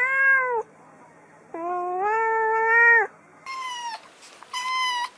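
An adult cat meows twice: a short call, then a longer, lower one of about a second and a half. Then a kitten gives two short, high-pitched meows.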